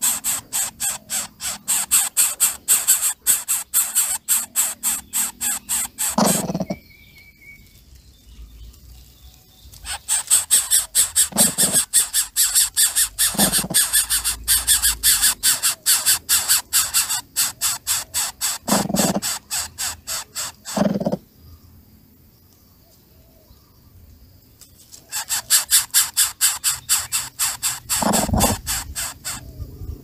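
Greater coucal nestling begging: long runs of sharp, squeaky calls, about four to five a second, in three bursts with two pauses of a few seconds. A few lower single calls sound between the runs.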